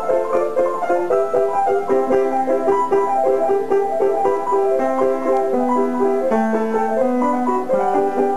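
Solo piano playing a lively tune in quick, repeated notes, with some lower notes held beneath that step downward partway through.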